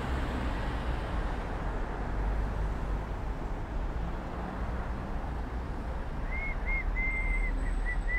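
Steady low rumbling vehicle noise. From about six seconds in, a thin high whistling tone comes and goes in short blips and longer held notes.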